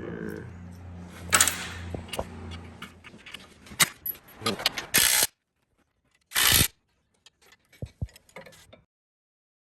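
Metal clinking and rattling of steel brackets and bolts being handled while a steel cylinder guard is fitted, with two short loud bursts about five and six and a half seconds in. The sound cuts out abruptly between pieces.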